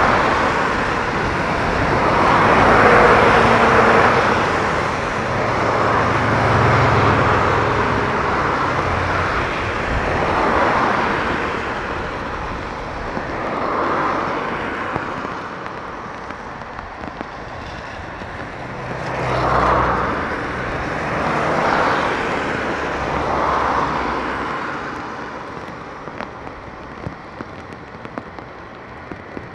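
Jet airliner's engines during a landing in heavy rain: a steady roar that swells and fades in several waves, loudest about three seconds in and again around twenty seconds, with a deeper rumble beneath it at those peaks. It dies away toward the end into a hiss of rain.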